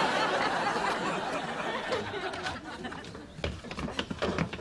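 Studio audience laughing, dying away over the first two or three seconds, followed by a few dull thumps near the end.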